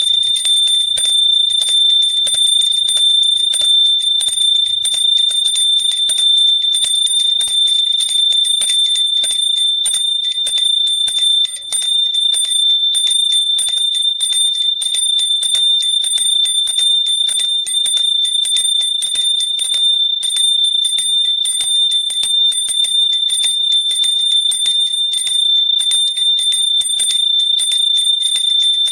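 Hand bell rung continuously, its clapper striking several times a second over one steady high ringing tone, with a brief dip about twelve seconds in.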